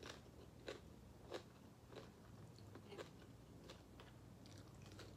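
Faint chewing of food, with soft crunching clicks at a steady rhythm of about one every two-thirds of a second.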